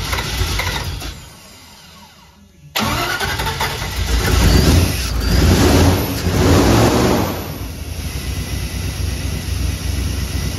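Fuel-injected V8 being started with its valve covers off: it stops about a second in, then starts almost three seconds in, is revved by hand three times and settles into a steady idle. It is running smoothly, its valves freshly re-adjusted after a push rod had come off and the valves were found out of adjustment.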